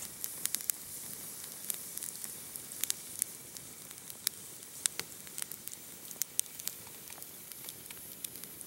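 Campfire of wet dead branches crackling, with irregular sharp pops over a steady sizzling hiss: damp wood that is burning poorly.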